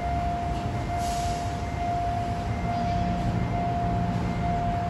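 Level-crossing warning alarm sounding a steady tone that repeats a little faster than once a second, over the low rumble of road traffic, with a brief hiss about a second in.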